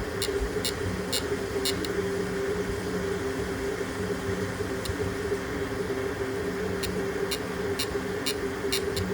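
3D printer running a print, its stepper motors giving a steady, slightly wavering hum, with scattered light ticks.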